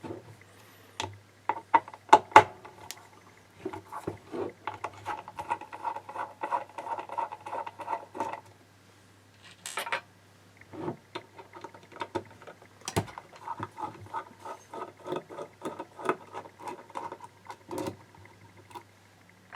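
Screws being undone from a hard drive's metal lid with a small screwdriver: two long runs of fast, squeaky ticking as the screwdriver turns, with sharp metal clicks between them.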